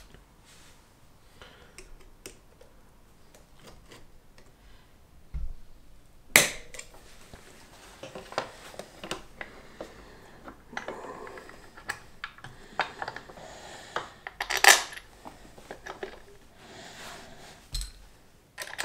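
Metal clinks, clicks and rattles of a Honda Monkey 125's drive chain, master link and front sprocket cover being handled and fitted back by hand. Two sharper metallic clanks stand out, about six and fifteen seconds in.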